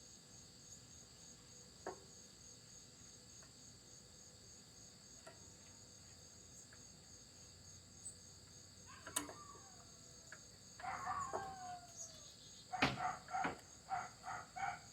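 A dog whines with falling pitch, then breaks into a rapid string of high yelping barks, about two or three a second, in the last part. The dog is upset at being shut away from its owner.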